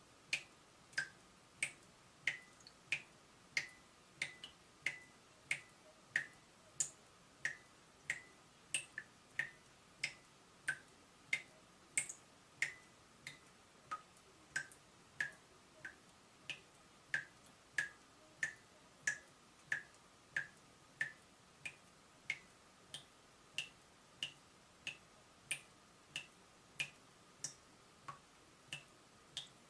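Water dripping from a leaking tap: a steady run of single drops, each a short sharp plink, about one and a half drops a second.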